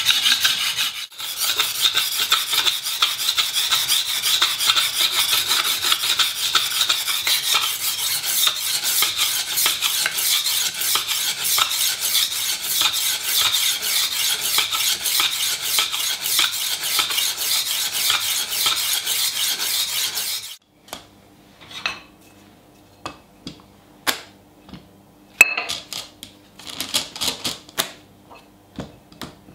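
Steel knife blade stroked rapidly back and forth on a diamond sharpening plate, a continuous gritty rasp, as the edge bevels are reground. About two-thirds of the way through it cuts off, and a few scattered knocks and clicks follow as a sharpening-stone holder is handled.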